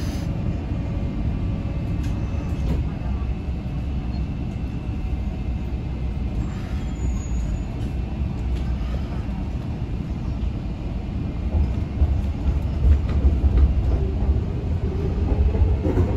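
An MTR Kwun Tong Line C-train, heard from inside a passenger car, pulling away and picking up speed. A steady low rumble grows louder about eleven seconds in, with a faint rising motor whine near the end.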